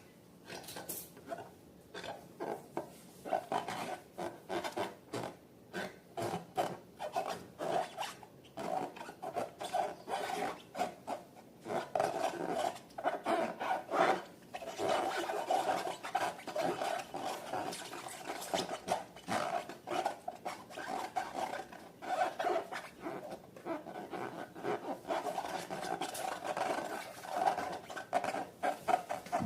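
Slime being mixed and worked by hand, with repeated sticky rubbing and squishing strokes about twice a second.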